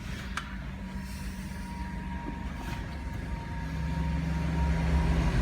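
Steady low mechanical hum with a faint, thin high tone above it, growing louder over the last second or so.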